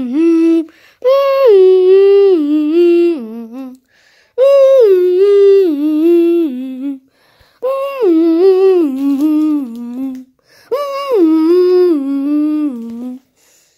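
A person humming a tune: four similar phrases, each starting high and stepping down in pitch, with short breaks between them.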